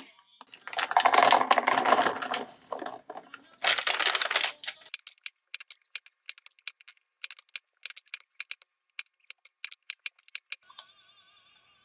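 Two louder noisy handling sounds in the first five seconds. Then a kitchen knife clicks and taps irregularly on a plastic cutting board as garlic cloves are trimmed, several clicks a second; the clicks stop near the end.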